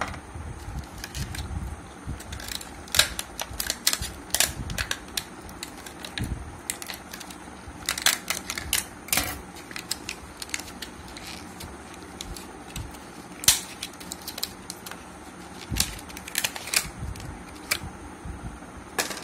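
Stiff clear plastic blister packaging crackling and clicking as it is cut with scissors and bent and pulled apart by hand: irregular sharp crackles that come in bunches.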